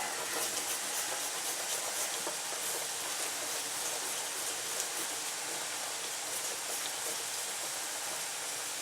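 Steady sizzling and bubbling of food cooking in a pan on the stove, with a few faint ticks.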